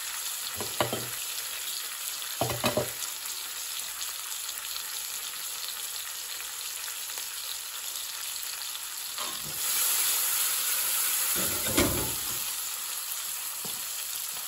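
A spice paste of onion, curry powder and tomato puree sizzling in a metal pan as the spices are fried down before the gravy goes in. A metal spoon scrapes through it a few times, and the sizzle gets louder for a couple of seconds past the middle as it is stirred.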